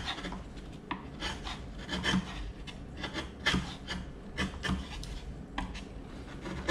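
Steel chisel paring down a wooden brace on an acoustic guitar top: short scraping strokes of the blade on the wood, a couple a second at irregular spacing, as the brace is thinned toward about 1 mm at its edge.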